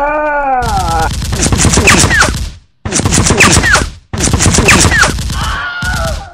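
Machine-gun fire sound effects: a drawn-out yell at the start gives way to three bursts of rapid automatic gunfire, with short gaps between them and falling whines inside the bursts.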